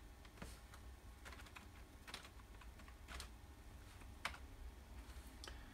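Faint, sparse keystrokes on a computer keyboard: single clicks at irregular intervals of roughly a second, over a low steady hum.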